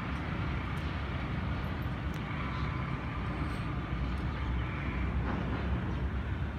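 Steady low rumble of a distant approaching ZCU-30 diesel-electric locomotive, with no sudden sounds.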